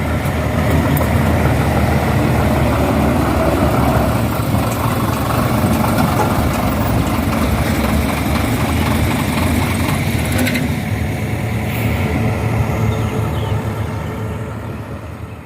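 A vehicle engine running steadily at idle, with a few light ticks about ten seconds in; it fades away near the end.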